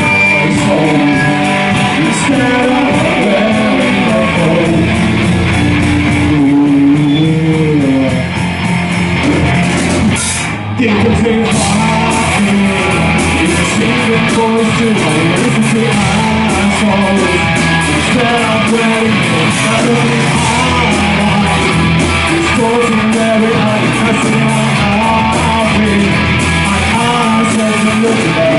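Rock band playing an instrumental break live, with guitars over bass and drum kit. The sound thins briefly about ten seconds in, then the full band with drums comes back in.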